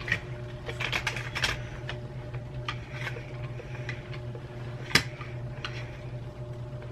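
Small plastic clicks and taps from handling and fitting together the parts of an opened Razer computer mouse, with one sharp click about five seconds in, over a steady low hum.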